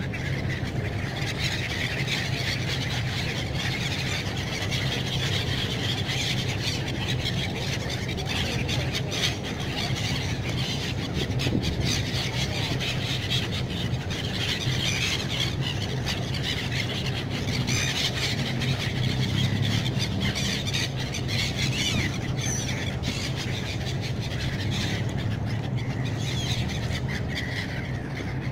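A large flock of gulls calling continuously, many overlapping high squealing cries, over a steady low hum.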